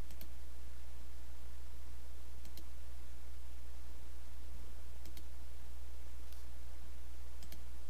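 A handful of computer mouse clicks, some in quick press-and-release pairs, spaced one to two seconds apart over a steady low hum.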